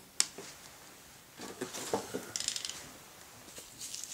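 Wooden toy train car set down on a hardwood floor: a sharp click as it meets the floor and couples by its magnet to the car ahead, then a short spell of small knocks and handling noise, and a few more clicks near the end.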